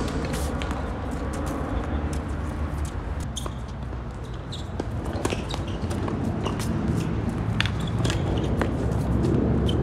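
Tennis rally on a hard court: rackets striking the ball and the ball bouncing make sharp pops at uneven spacing, some with a short ringing ping from the strings. A steady low rumble runs underneath.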